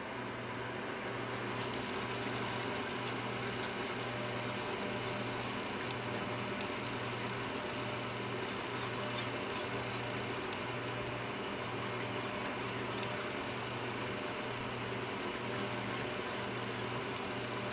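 A cordless phone handset being scrubbed to get caked-on grime off, many quick rubbing strokes one after another, over a steady low hum.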